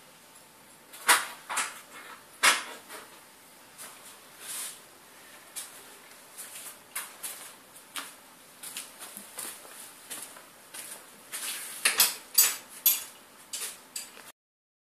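Irregular light clicks and clinks of small hard objects being handled, loudest about a second in, again at two and a half seconds and around twelve seconds; the sound cuts out abruptly near the end.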